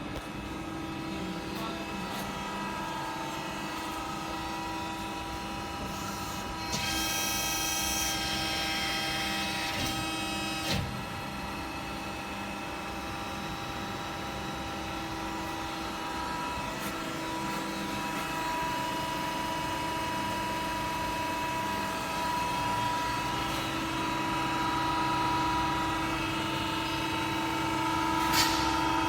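CNC servo press brake running with a steady hum and whine. There is a brief hiss about seven seconds in, and single knocks around eleven seconds and near the end.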